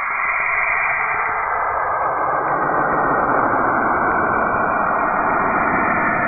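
Sonified planetary radio and magnetic-field recording presented as the sound of Saturn: a steady, dense electronic hiss with faint steady tones, growing a little louder over the first few seconds.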